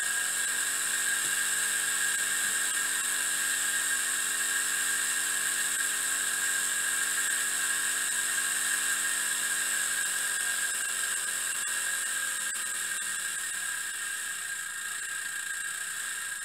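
Miniature three-cylinder steam engine running fast, with a high whine and hiss from the spinning engine and its gears. From about ten seconds in, its pitch falls and it gets a little quieter as the engine slows.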